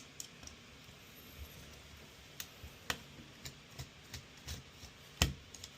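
Irregular small clicks and taps of a screwdriver and small metal parts as the mounting bracket is unscrewed from a graphics card, with one louder knock about five seconds in.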